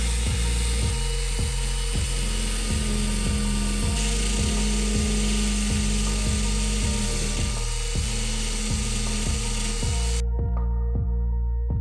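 MIG welding arc crackling and hissing steadily. It cuts off suddenly about ten seconds in. Background music with a steady beat runs underneath.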